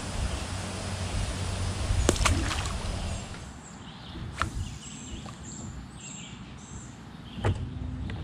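Rustling and knocks of handling in a small boat, with a couple of sharp knocks about two seconds in as a fishing rod comes back into use. A bird calls a few short high chirps during the quieter second half, between single clicks.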